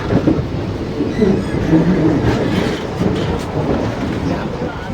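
Passenger train in motion, with a steady, loud low rumble of the running carriage.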